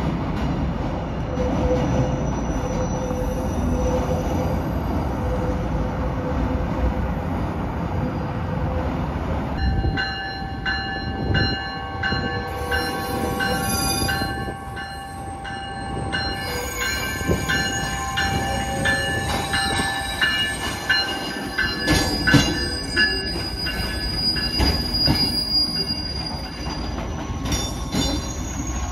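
River Line Stadler GTW diesel light-rail car running on street track, its wheels squealing as it rounds a tight curve. A low rumble gives way about ten seconds in to a high squeal of several steady tones, which carries on as the car passes close by.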